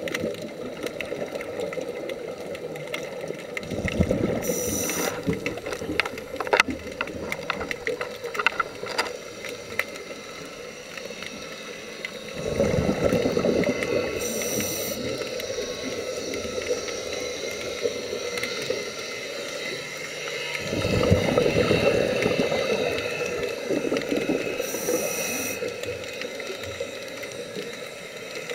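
Scuba diver's breathing heard underwater: exhaled bubbles gurgle in bursts every eight or nine seconds, with three short high hisses from the regulator. A run of scattered clicks comes a few seconds in.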